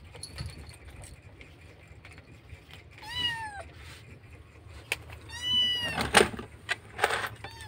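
Young kitten meowing loudly, crying for its mother: two calls that each rise and then fall, the second one longer. A few sharp knocks sound in between, the loudest just after the second call.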